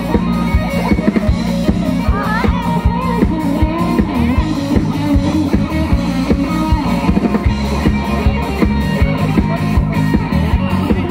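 Live rock band playing loudly: electric guitar over bass and a steady drum-kit beat.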